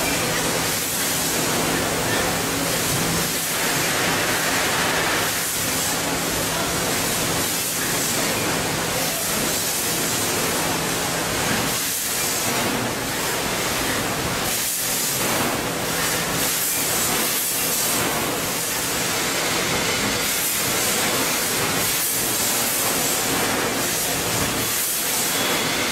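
Factory-floor machinery running: belt conveyors and a vertical form-fill-seal packing machine give a steady hiss over a low hum.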